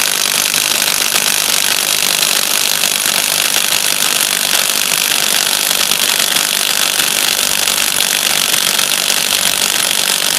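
HPT MA-IW155N cordless impact wrench hammering steadily at full power in reverse, working a bolt loose against a hydraulic torque tester loaded to 1,500 psi.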